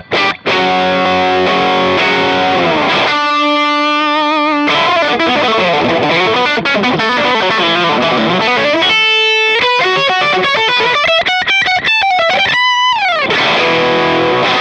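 Overdriven electric guitar, a Telecaster-style with a Bigsby vibrato, played through the VS Audio Royal Flush dual overdrive pedal. It plays chords, then a held note with vibrato and single-note lines with string bends, and ends on a chord that rings out near the end.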